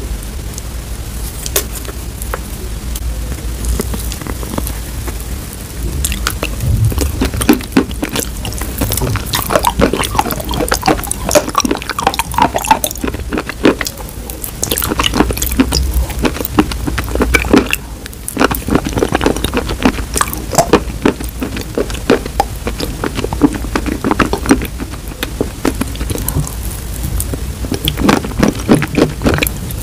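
Close-miked wet chalk paste being scooped from a glass bowl with a plastic scoop and eaten: sticky squelching and a dense crackle of small wet clicks, growing thicker about six seconds in.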